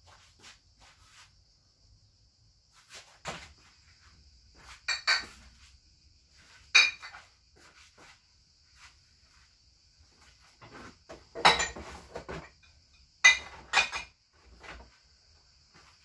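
Objects being handled and set down: a series of separate metallic clinks and knocks with short ringing, the loudest about eleven to fourteen seconds in, over a faint steady high hiss.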